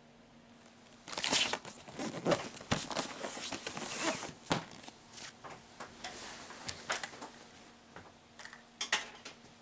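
A large cardboard box being handled and turned over by hand: rustling and scraping of cardboard with several light knocks, starting about a second in.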